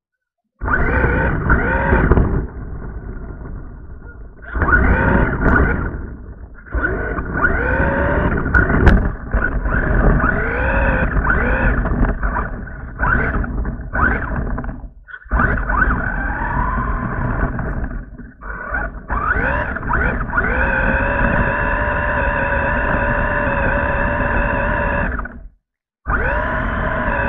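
RC monster truck's motor and gears whining, heard through the truck's own camera, the pitch rising with each burst of throttle over a rumble from the wheels and chassis. Near the end it holds a steadier whine for several seconds.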